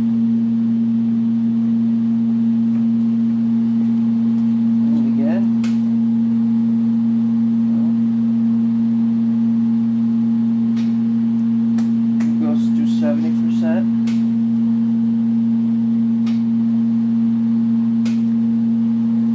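Repaired 2 kW RF heat sealer running with power applied while heating plastic, giving off a loud, steady electrical hum that holds an unchanging pitch.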